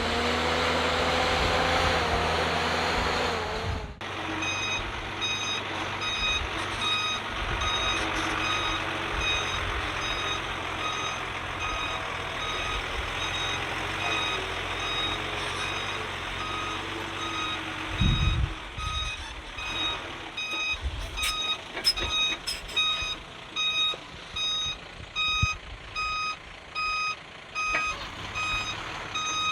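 Heavy-equipment reversing alarm beeping in an even, repeating pattern over a low diesel engine rumble. Before it, a louder engine sound cuts off suddenly about four seconds in. In the second half a low thud is followed by scattered knocks and clunks.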